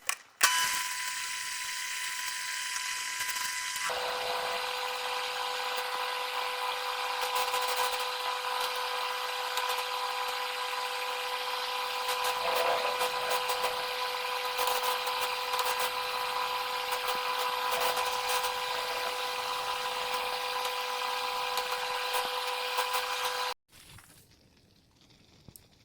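Microwave oven running: a steady electrical hum with fan hiss. The hum drops in pitch about four seconds in and cuts off suddenly near the end.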